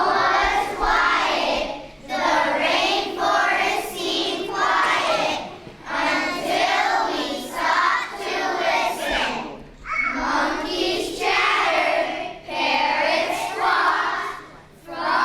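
A group of children singing together, phrase after phrase with short breaks between them.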